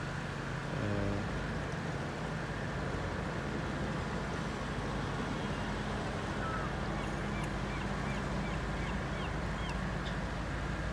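Steady low hum of road traffic and engines. A short call sounds about a second in, and faint short bird chirps come from about seven to nine and a half seconds in.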